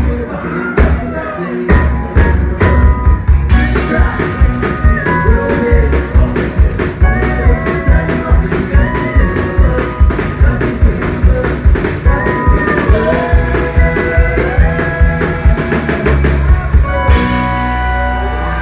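Live country-rock band playing an instrumental passage: a steady drum beat and bass under a lead instrument whose notes bend in pitch, with cymbals washing in near the end.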